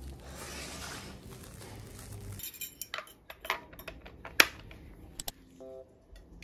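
Background music that stops about two seconds in, followed by a handful of sharp metallic clicks and clinks from steel hand-mixer beaters handled over a stainless steel mixing bowl, the loudest a single clack just past the middle.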